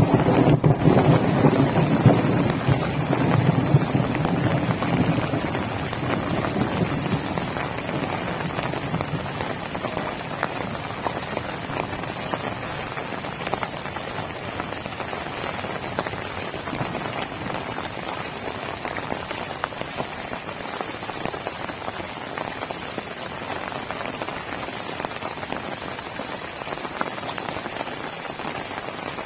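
Heavy rain falling steadily as a dense, even hiss, fuller and louder in the first few seconds before settling to a constant level.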